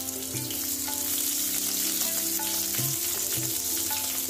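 Sliced onions and dried red chillies sizzling in hot oil in a wok, stirred with a wooden spatula.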